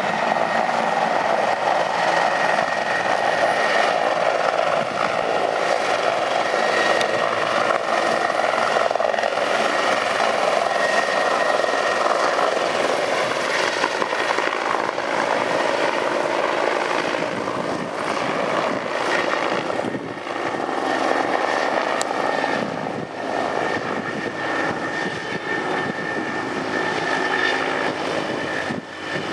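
Turbine helicopter with a four-blade main rotor departing: loud, steady rotor and engine noise with a thin high whine, growing weaker over the second half as it flies away.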